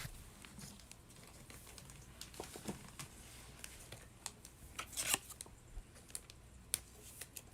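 Faint rustling and small clicks of a trading card being slid into a plastic card sleeve, with a louder crinkle about five seconds in.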